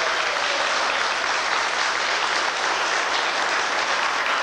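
A room full of people applauding, dense and steady clapping.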